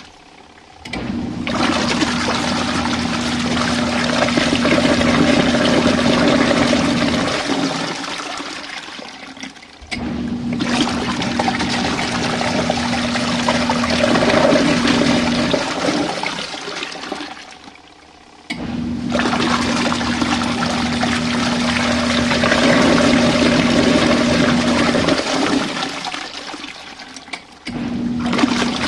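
RV washing machine agitating a tub of water: a motor hum with water churning, running for about eight seconds at a stretch and pausing briefly between runs. It is running a 15-minute cycle to rinse leftover detergent suds out of the tub.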